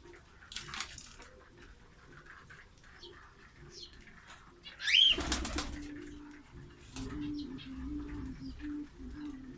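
Pigeons cooing in a low, wavering drone for the last four seconds or so. About five seconds in there is a loud burst of wing flapping with a short rising squeak, and a few lighter flutters earlier.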